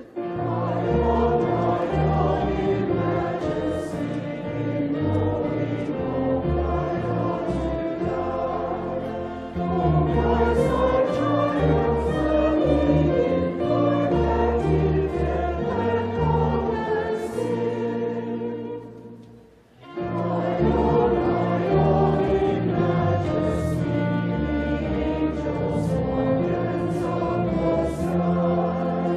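Choral music: a choir singing held chords over low bass notes, fading to a brief pause about two-thirds of the way through before the next phrase begins.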